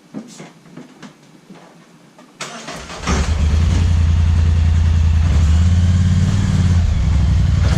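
An ATV engine is started about two and a half seconds in, catches, and then runs steadily.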